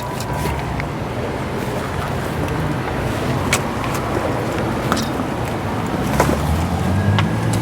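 Steady car and traffic noise with a low engine hum that grows stronger near the end, broken by a few sharp knocks.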